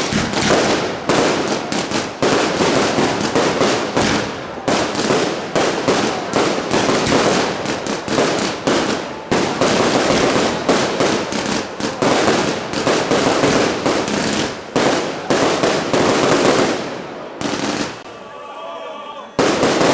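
Fireworks going off in a dense, nonstop barrage of rapid bangs and crackles. The barrage eases off about two seconds before the end, when voices can be heard, then one more loud bang comes just before the end.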